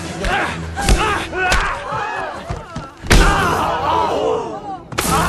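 Film fight-scene soundtrack: several heavy thuds, the loudest about three seconds in, over people shouting and crying out, with a low steady drone beneath.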